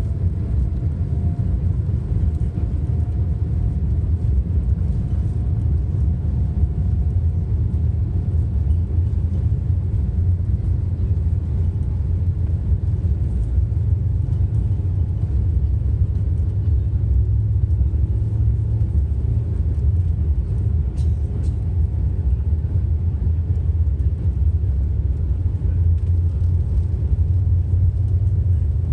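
Boeing 777's twin turbofan engines heard from inside the cabin during takeoff: a loud, steady low rumble with a faint steady whine above it. Two faint clicks come about two-thirds of the way through.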